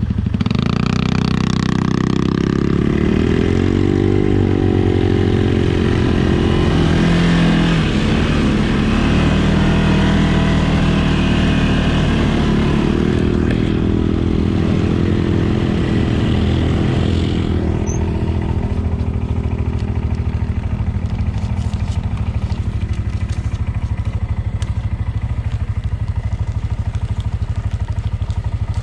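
CFMOTO ATV engine running while riding off-road, its pitch rising and falling with the throttle. It settles into a steadier run in the last third.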